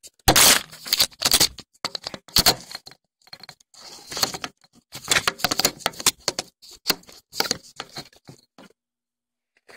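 Handling noise on a phone's microphone: irregular crackling, rubbing and knocking as the phone is moved about and set in place, loudest in the first two seconds and stopping about a second before the end.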